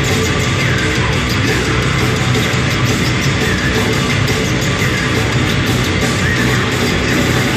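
A heavy metal band playing live in an arena, with distorted electric guitars and drums, loud and unbroken, heard from the stands.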